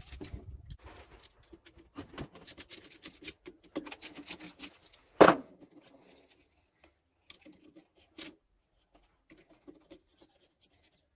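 Scraping and clicking of parts being handled, with one sharp knock about five seconds in and a softer knock about eight seconds in.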